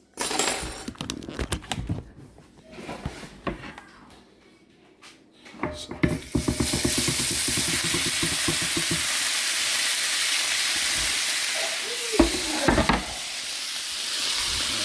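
Utensils scraping and clattering as shredded chicken is moved across, then from about six seconds in a steady sizzle as the chicken hits the hot skillet.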